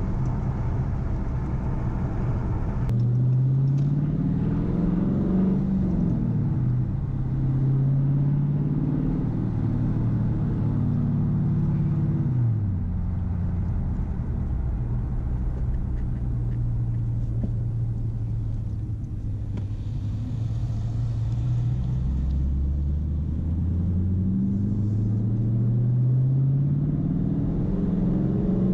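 Straight-piped Dodge Challenger R/T's V8 exhaust heard from inside the cabin as the manual car is driven: the rumble climbs in pitch under acceleration and drops back at gear changes several times, holds steady at a cruise for a stretch in the middle, then climbs again near the end.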